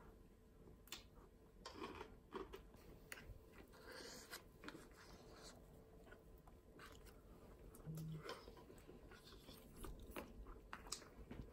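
Faint close-up eating sounds: a mouthful of fried rice and cabbage being chewed, with scattered small clicks as a plastic spoon scoops against the plastic tray.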